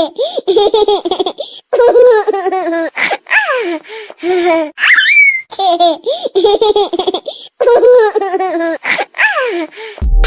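Funny ringtone of a high-pitched, baby-like laugh in loud giggling bursts with short gaps and a rising squeal. Near the end an electronic tune cuts in.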